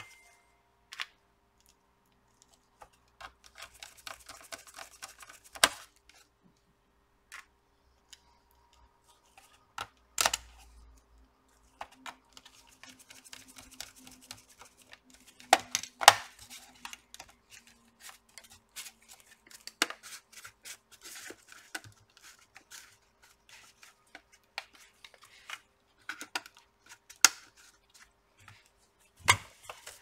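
A small precision screwdriver turns screws into the plastic palm rest of a Lenovo ThinkPad T420 laptop, in stretches of fine, rapid ticking. Sharp plastic clicks and knocks come in between, loudest about sixteen seconds in, as the palm rest is pressed and snapped into place and the laptop is handled.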